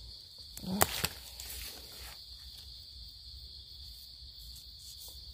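Steady high-pitched chorus of forest insects, with one sharp click and a short low vocal sound about a second in.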